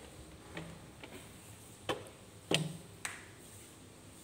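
Flat floor mop with a disposable cleaning sheet pushed across a hard floor: four short knocks and clicks from the mop head and handle, the loudest a little past halfway.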